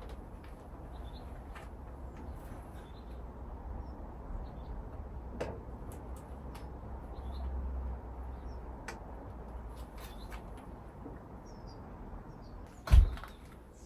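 Faint bird chirps over a steady low rumble, with a few light clicks and one loud thump about thirteen seconds in.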